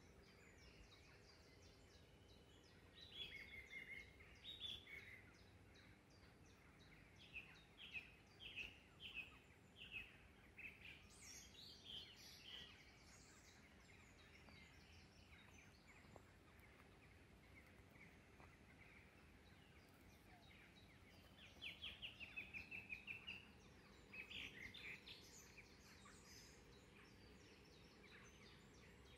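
Faint birdsong over quiet outdoor background noise: a few spells of quick, high repeated notes, with a rapid run of notes a little after the middle and more song in the second half.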